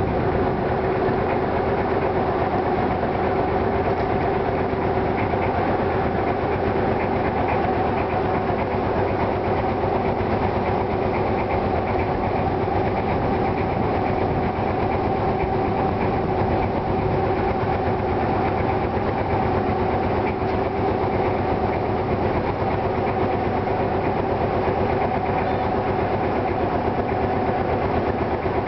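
Small river boat's engine running steadily at an even speed, a continuous drone with a constant hum that does not change in pitch.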